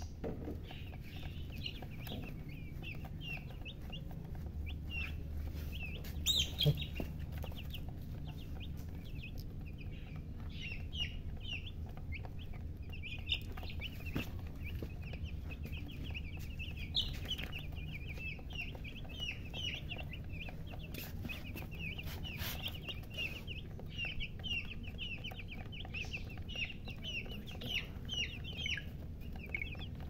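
A flock of young chicks peeping constantly: many short, high chirps overlapping, growing thicker partway through. A steady low hum lies underneath, and there is one sharp knock about six seconds in.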